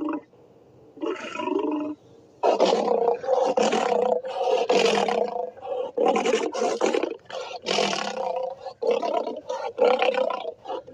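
Custom giant-monster roar sound effect: layered, pitched roars, a short one about a second in, then a long run of roars broken by brief gaps.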